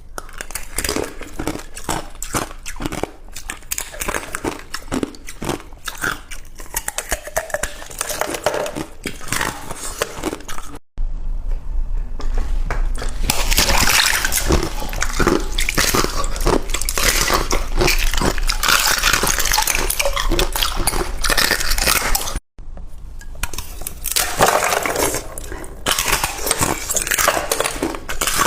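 Close-up crunching and chewing of crushed ice: dense, rapid cracks and crackles, broken twice by brief gaps where the clip cuts.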